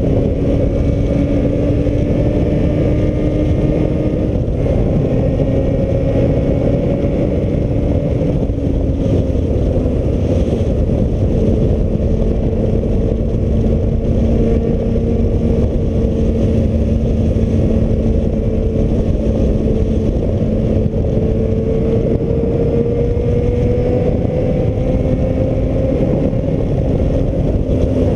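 Wind rushing over the camera microphone of a moving Suzuki Bandit motorcycle, with the hum of its inline-four engine underneath as a steady tone. The engine note drops about ten seconds in, holds, then rises slowly near the end.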